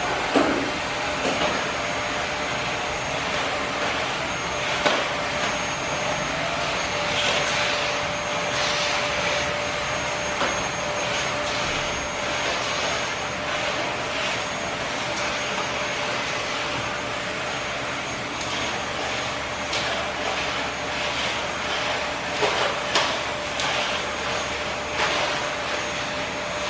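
Vacuum cleaner running steadily with a constant whine, its noise broken by a few short knocks and bumps.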